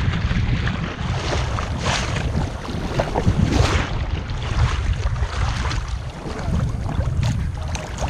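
Wind rumbling on the microphone over sea water washing and splashing in the surf, with louder swashes about two and three and a half seconds in.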